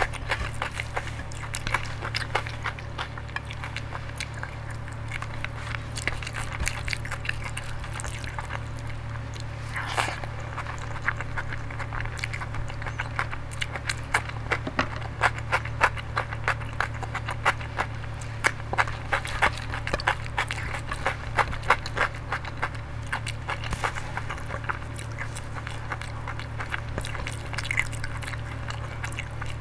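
Close-miked eating by hand: wet chewing and mouth clicks from mouthfuls of dal and rice, with fingers squishing and scraping the rice on the plate. A steady low hum runs underneath.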